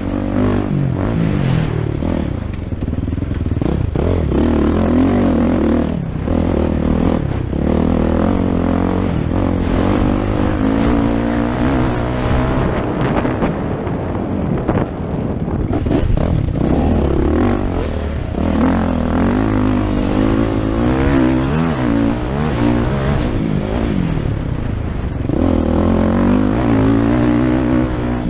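Motocross bike engine heard close up from the bike itself, revving hard and falling away again and again as the rider accelerates, shifts and rolls off around the dirt track.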